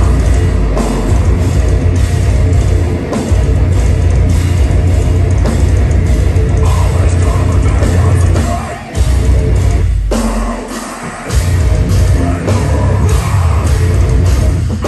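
Deathcore band playing live at full volume: heavily distorted guitars over drums. The heavy low end drops out briefly about nine seconds in, then again for about a second just after ten seconds, before the full band comes back.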